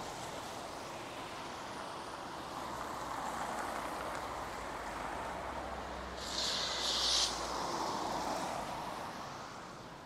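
A car passes on a wet street: its tyres hiss on the road and its engine rumbles low, swelling and then fading away, with a short, sharper hiss just past the middle.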